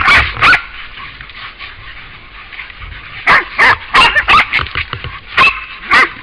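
Hunting dogs barking at a wild boar they are holding at bay: two sharp barks at the start, a lull of a couple of seconds, then a run of quick, high barks and yelps.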